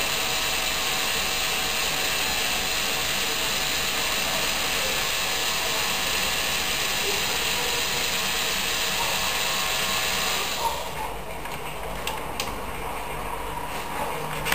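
Small LEGO Power Functions electric motor whirring steadily through plastic Technic gears, dropping away about ten and a half seconds in, followed by a few light clicks.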